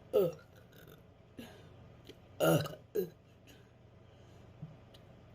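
A woman burping four times: a loud first burp that falls in pitch, a small one about a second later, then a loud pair around two and a half and three seconds in.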